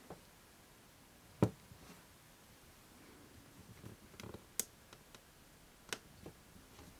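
A handful of scattered light clicks and taps from a Nokia 3230 mobile phone being handled, its keys pressed; the sharpest click comes about a second and a half in.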